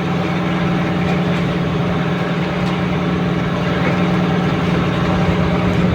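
Small fishing boat's engine running steadily at a constant speed, with an even hum.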